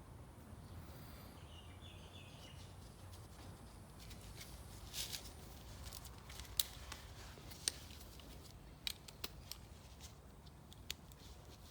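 Scattered light clicks and taps of small plastic and metal engine parts being handled and fitted while a lawn mower carburettor is reassembled, a dozen or so sharp ticks in the second half.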